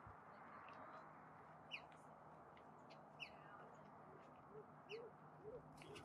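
Western bluebirds calling: three short, downward-slurred chirps about a second and a half apart, faint over a steady background hiss. A few low short notes from another bird come in near the end.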